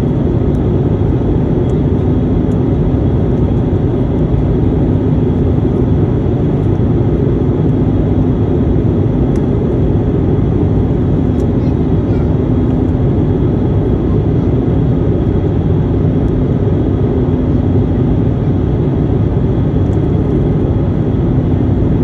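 Airliner cabin noise on the approach to landing: a steady, loud rumble of engines and airflow with a constant low hum.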